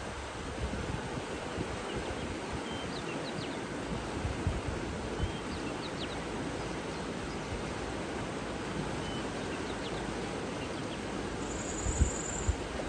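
Outdoor nature ambience: a steady, even rushing hiss, with a few faint, short bird chirps a few seconds in and a brief high bird note near the end, plus low wind bumps on the microphone near the end.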